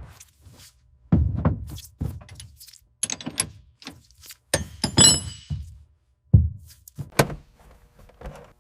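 A series of separate heavy thunks and clicks, about eight hits spread over the stretch, with a brief metallic jingle about five seconds in.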